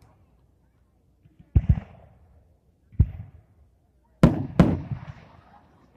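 Aerial firework shells bursting: four sharp bangs, the first two a second and a half apart and the last two in quick succession, each trailing off in a brief crackle.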